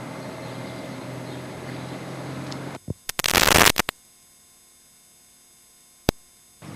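Steady rumble of a running vehicle that cuts off abruptly about three seconds in, followed by a loud burst of static-like noise about a second long, then dead quiet broken by a single sharp click before the sound comes back near the end: a break between recordings on a camcorder tape.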